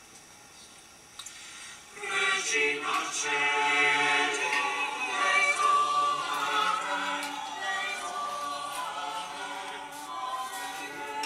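Mixed choir of men and women singing, starting about two seconds in and continuing, played on a television.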